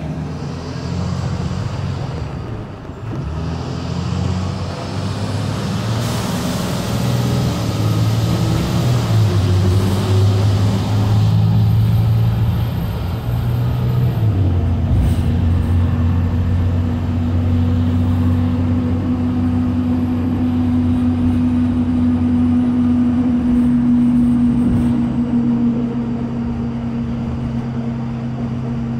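Cummins ISB 5.9-litre straight-six turbo-diesel of a Thomas MVP EF front-engine school bus pulling under way, heard from the rear seats inside the bus. The engine note climbs, changes pitch about halfway through at a gear change, then holds steady.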